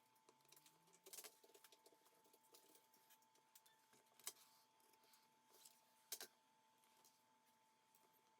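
Near silence with a few faint sharp clicks and taps of small tools and parts being handled during reassembly, the clearest about a second in, at about four seconds and around six seconds, over a faint steady tone.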